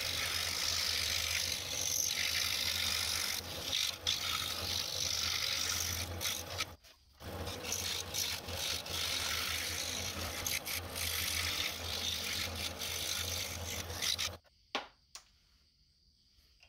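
DEWALT scroll saw running, its blade cutting through a wooden sign board with a steady rasping whir over a motor hum. The sound drops out briefly about seven seconds in, then stops near the end, followed by a couple of clicks.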